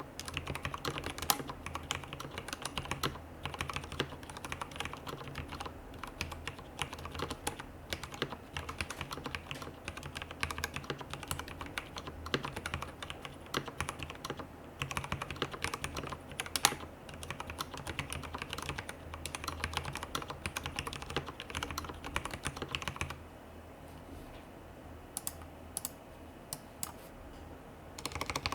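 Typing on a RAMA WORKS KARA custom mechanical keyboard with lubed Cherry MX Black linear switches, a polycarbonate plate and GMK keycaps: fast, continuous keystrokes. About 23 seconds in, the typing drops to a few scattered keystrokes, then resumes right at the end.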